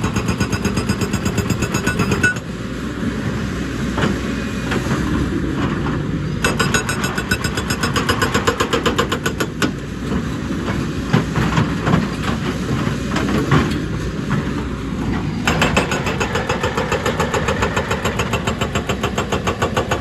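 A JCB tracked excavator's hydraulic rock breaker hammering rock in a rapid, even rhythm over the running engine. The blows ease off for a few seconds after about two seconds, then pick up again.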